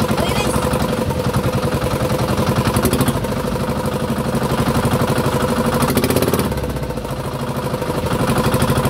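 Small outrigger fishing boat's engine running steadily with a fast, even firing beat; it eases off briefly about six and a half seconds in, then picks up again.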